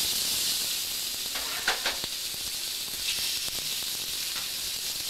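Pieces of green and yellow courgette sizzling in hot olive oil in a frying pan as they are sautéed, a steady hiss with a few light knocks.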